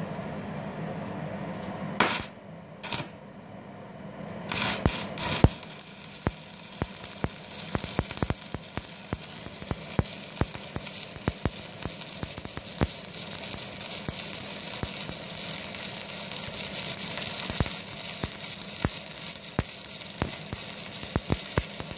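Stick-welding (MMA) arc from an IGBT inverter welder burning a 4 mm LB-52U low-hydrogen electrode at about 157 A. A few short bursts near the start as the arc is struck, then from about four and a half seconds in a steady crackle with frequent sharp pops.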